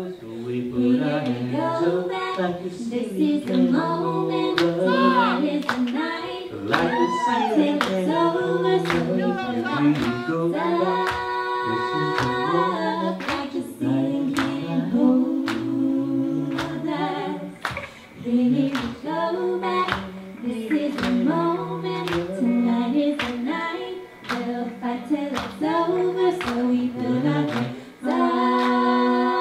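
Live band playing a song: singing over a steady drum beat.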